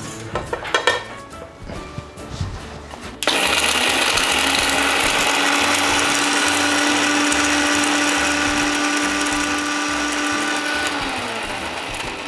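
Electric spice grinder switching on about three seconds in and running steadily at full speed, grinding whole spices such as cardamom, coriander seeds and cumin into masala powder. Near the end it is switched off and winds down, its hum falling in pitch. A few light clinks come before it starts.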